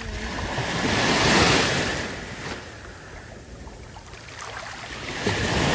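Ocean surf washing in: one wave swells up and fades away, and the next starts building near the end.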